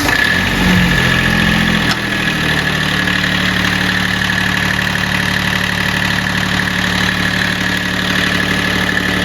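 Kubota B7100 compact tractor's three-cylinder diesel engine, just started, running slightly fast for about two seconds, then settling into a steady idle.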